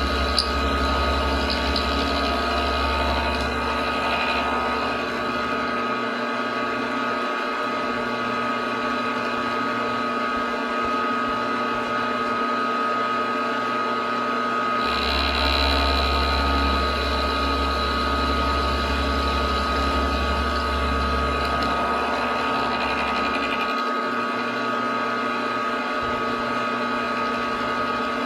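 Milling machine spindle running steadily as an end mill cuts hex flats on a small threaded metal part. A deeper low rumble comes in for the first six seconds or so and again from about fifteen to twenty-two seconds, while the steady running tones stay throughout.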